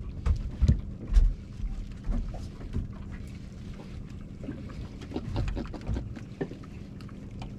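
Wind buffeting the microphone and water around a small fishing boat, with scattered knocks on the boat and a steady low hum.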